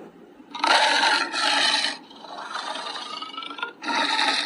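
Lion roaring in harsh, rasping calls: a loud call starting about half a second in and lasting over a second, a quieter stretch, then another loud call near the end.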